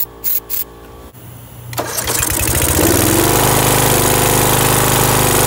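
Two short hisses of starting fluid sprayed into the air intake, then the John Deere GX85 riding mower's engine cranks, catches on the ether about two seconds in, and settles into a steady run.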